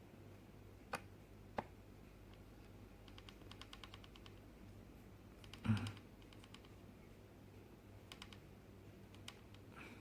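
Small screwdriver working tiny screws into a MacBook Pro's aluminium case: scattered light clicks, a quick run of fine ticks about three to four seconds in, and one louder knock near the middle.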